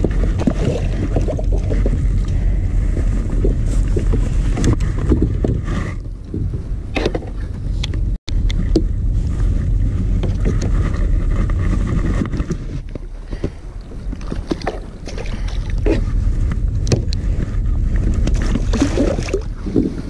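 Wind rumbling on the microphone over water lapping at a kayak hull, with scattered knocks and splashes as a hooked mulloway (jewfish) is landed with a lip grip.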